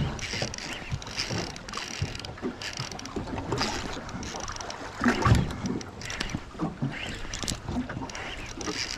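Noises aboard a small fishing boat during a fight with a fish: irregular knocks and clunks over water and wind noise, with a heavier thump about five seconds in.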